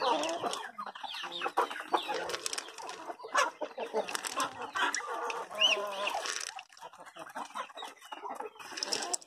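A flock of chickens clucking, with many short overlapping calls and a high peep a little past the middle. The calls thin out and grow quieter in the last few seconds.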